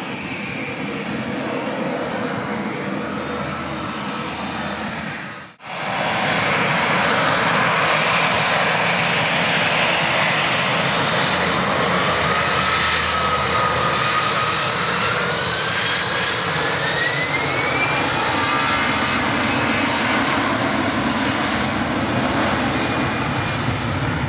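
Airliner jet engines running as an Airbus A319 moves along the runway. After a sudden cut, the louder jet engines of an Airbus A321 at takeoff power on its takeoff roll, with a whine that rises in pitch about halfway through.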